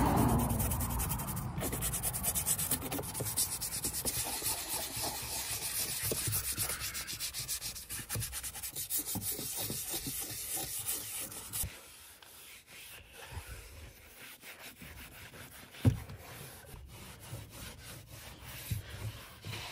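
Small brush scrubbing foamy cleaner on a car's door trim panel in fast back-and-forth strokes. After about twelve seconds it gives way to quieter, slower rubbing, and a single sharp knock comes late on.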